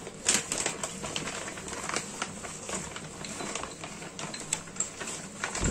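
Clear plastic bag crinkling and rustling in the hands, a quick irregular run of small crackles as it is handled and opened. A dull thump right at the end.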